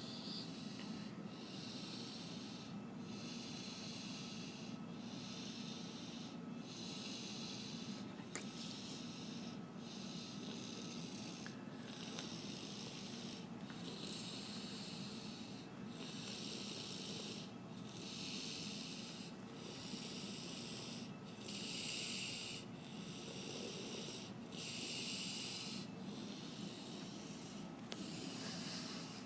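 A person snoring in sleep: hissy, rasping breaths that repeat about once a second.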